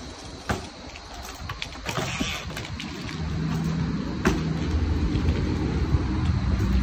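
BMX bike on a concrete floor, its wheels knocking down sharply as it lands hops about half a second in and again about four seconds in. From about three seconds a low, steady rumble builds and grows louder.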